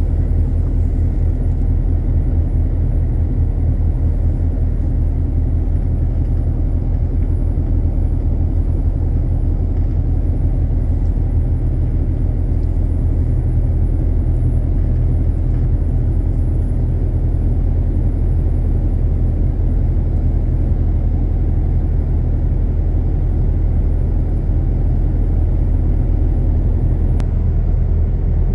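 Heavy truck's engine and road noise heard inside the cab while driving: a steady low rumble that holds even throughout.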